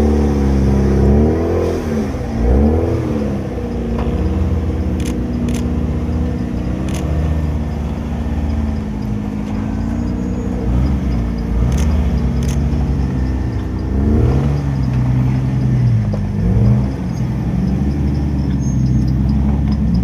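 Rock crawler buggy's engine running under load as it climbs a steep rock ledge, revving up and down in short throttle bursts twice, with a few sharp clicks in between.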